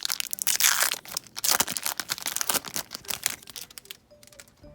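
Wrapper of a 2015 Topps Update baseball card pack being torn open and crinkled: a run of loud rips and crinkles that dies away about four seconds in.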